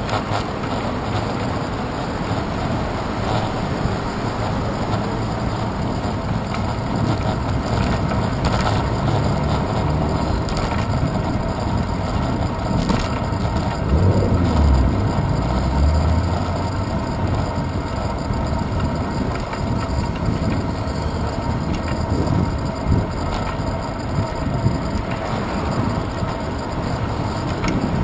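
Steady wind and road noise picked up by a handlebar-mounted GoPro on a bicycle riding along a street with car traffic, with a louder low rumble about halfway through and a couple of short sharp knocks later on.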